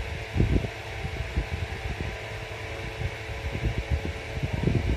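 A steady mechanical whir and hiss fills the room. Soft, irregular low thumps and cloth rustles come with it, from the blanket and wrap being handled close to the microphone.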